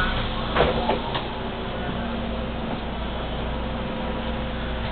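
City bus standing at a stop with its engine idling, heard from inside the cabin. A couple of short knocks come about half a second and a second in.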